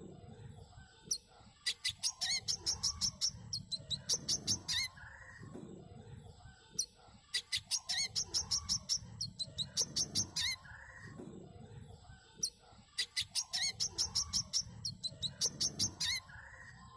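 Brown-throated sunbird (manggar) song: three lively phrases of rapid, high-pitched chirping notes, each lasting about three seconds and coming about every five and a half seconds.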